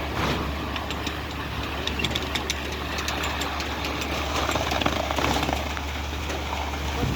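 Concrete truck's diesel engine running steadily, a low drone with scattered clicks and knocks about one to three seconds in.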